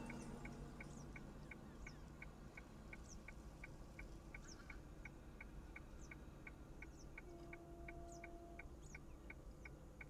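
Faint bird calls: a steady run of short high ticks, about three a second, with thin quick falling chirps about once a second.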